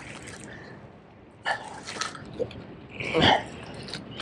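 A handful of short, breathy human sounds, sharp exhales and grunts of effort, the loudest about three seconds in, from an angler straining to bring in a hooked fish.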